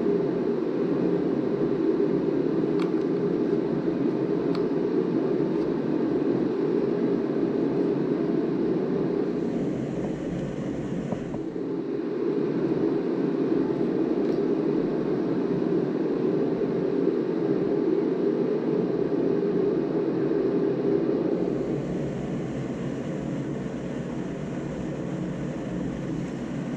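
A steady low droning noise throughout, with a few faint light clicks.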